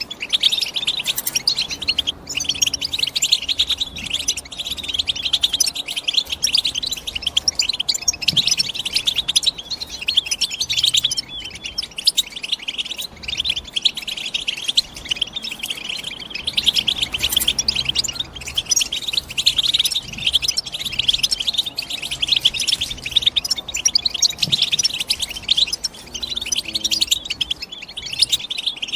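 European goldfinch singing: a rapid, unbroken run of high twittering chirps.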